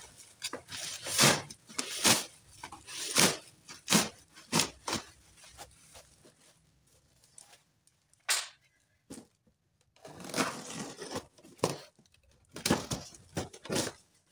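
Packing tape being ripped off and bubble wrap and cardboard handled while a parcel is unwrapped: a run of short, loud rips through the first five seconds, a quiet stretch with a single rip, then more ripping and rustling of cardboard near the end.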